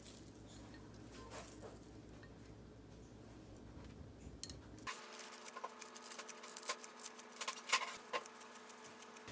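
Light clicking and tapping of small objects being handled, sparse at first and then coming thick and fast for the last four seconds.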